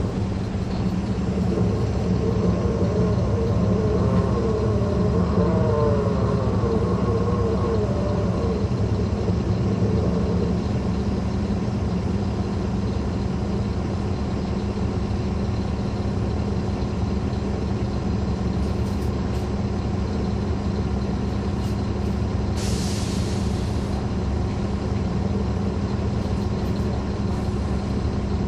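2009 NABI 40-SFW transit bus with a Caterpillar C13 diesel engine running steadily, with a whine that wavers in pitch and fades out after about nine seconds. About two-thirds of the way through comes a short burst of air hiss from the air brake system.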